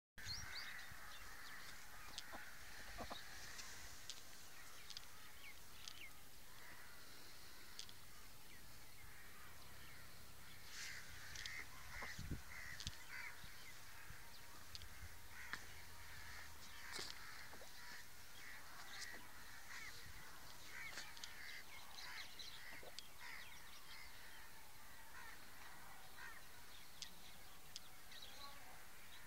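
Background birds calling and chirping, with many short high calls scattered throughout, over a steady outdoor hiss. A couple of soft knocks come about twelve seconds in.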